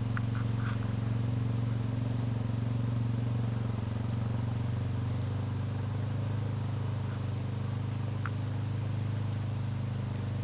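ATV engine running steadily at an even, low pitch.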